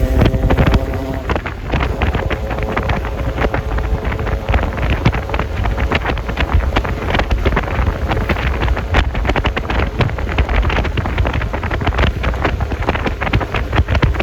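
Wind buffeting the microphone of a moving Yamaha Lexi LX 155 S scooter, over a low rumble of engine and road noise. A steady pitched tone stops about a second in.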